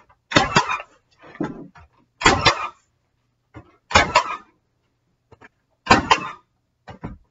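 A 16-gauge finish (trim) nailer firing four times, about two seconds apart, driving 2-inch nails through the outer edge of door casing into the wall framing. Fainter knocks of the tool being moved come between the shots.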